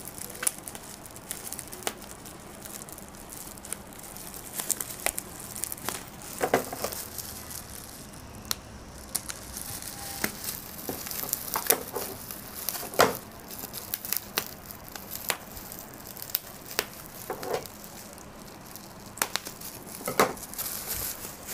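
Plastic bubble wrap crinkling and packing tape being picked at and peeled off it, heard as irregular sharp crackles and clicks, while a laptop cooling pad is unwrapped.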